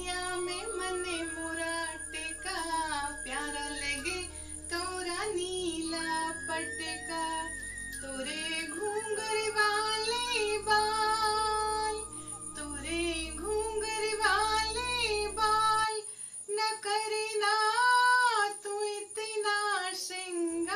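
Hindi devotional bhajan music: a woman's voice sings a wavering melody line without clear words, over a low accompaniment that drops out about 16 seconds in.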